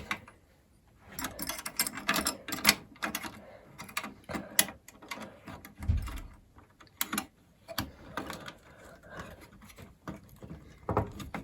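Heatsink being handled and fitted back onto the iMac G3's PowerPC CPU: irregular clicks, light knocks and scrapes of metal and plastic parts, with a dull thump about six seconds in.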